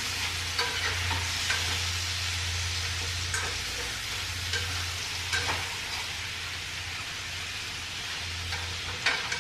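Steak tips and onions frying in a skillet, a steady sizzle, with a few light clicks of a utensil against the pan as they are stirred.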